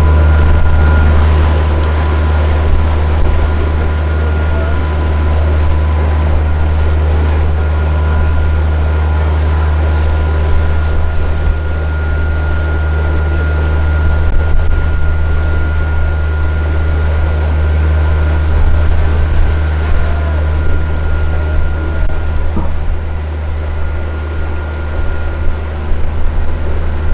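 Motor of an open wooden canal tour boat running steadily while cruising: a constant low rumble with a thin steady whine above it.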